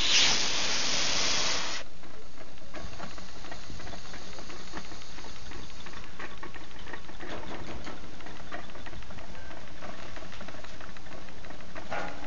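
A loud hiss cuts off suddenly about two seconds in. Then a homemade Stirling engine runs, its flywheel and linkage making a fast, light mechanical clicking.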